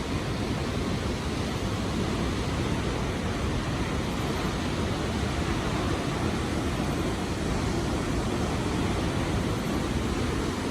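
Steady rush of falling water from a waterfall, an even roar that holds without change.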